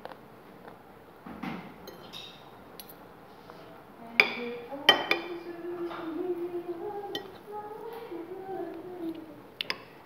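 Metal spoon and fork clinking and scraping against a plate while eating rice: a few sharp clinks about four and five seconds in and a couple more near the end.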